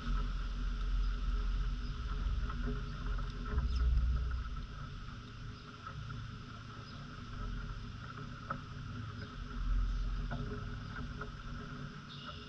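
Outdoor ambience dominated by a low, uneven rumble of wind buffeting the microphone, swelling and easing several times. Under it runs a steady thin high drone, with a few faint ticks.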